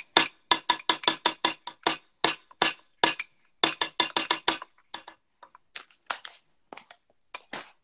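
A spoon clinking rapidly against the side of a mug while stirring mug cake batter, about five or six taps a second at first, thinning to scattered taps in the second half.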